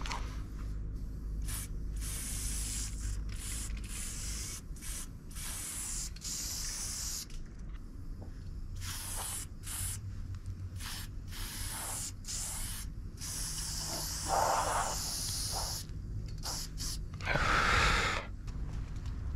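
Aerosol spray-paint can spraying onto a bus panel in many separate strokes of hiss, some short and some lasting a second or more, with brief pauses between them. Two louder bursts come in the last few seconds.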